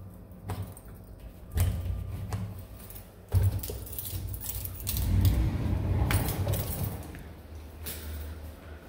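A pocket door pulled out of its wall pocket by its flush pull and slid open, with a few low thumps, a longer rumbling stretch as it runs, and some sharp clicks and rattles of the hardware.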